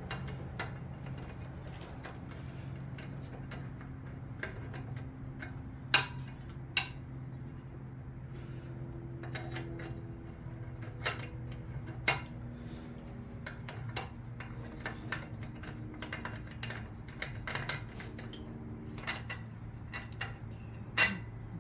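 Hand tools clicking and clinking against metal as bolts are worked off a Chevy 350 V8's intake manifold, with several sharper clanks, over a steady low hum.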